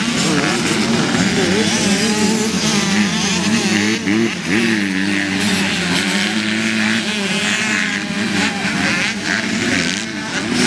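Several dirt bike engines revving up and down at once on a motocross track, their pitches rising and falling and overlapping.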